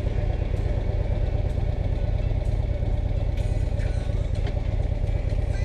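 Harley-Davidson Ultra Classic CVO's 110 cubic inch Screaming Eagle V-twin engine running steadily with a deep, even rumble.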